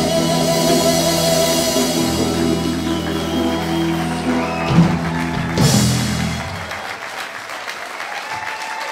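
A live rock band with a drum kit and electric guitar holds a final chord; two drum hits, the second with a cymbal crash, close the song about five seconds in. The chord rings away and audience applause follows near the end.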